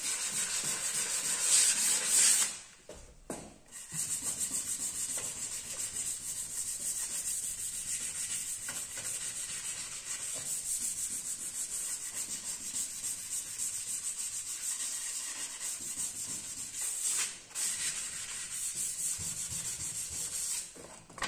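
A 240-grit sanding sponge rubbed by hand over a car's repaired steel rear wheel arch in fast back-and-forth strokes. It is scuffing the welds and ground-down spots matte so that epoxy primer will hold. The scrubbing breaks off briefly about three seconds in, then carries on.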